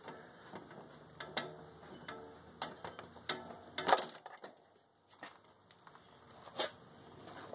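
Scattered light clicks and knocks as hands work the hoses and fuel filter off a mower's fuel line, with the loudest knock about four seconds in.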